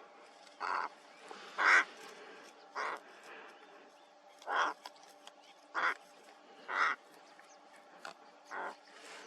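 Two ravens calling: about seven short, harsh calls spaced one to two seconds apart.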